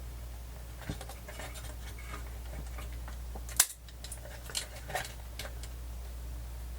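Small clicks and scratchy scrapes from handling the cassette player's mechanism during cleaning, with one sharp click about halfway through, over a steady low hum.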